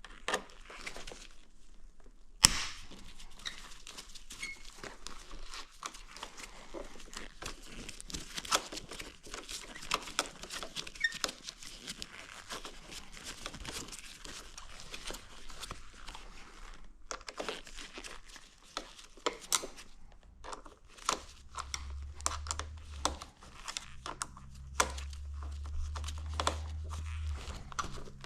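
Hand-work on a motorcycle being stripped down: scattered clicks and taps of tools, fasteners and plastic bodywork, with one sharp click about two and a half seconds in and a low hum over the last several seconds.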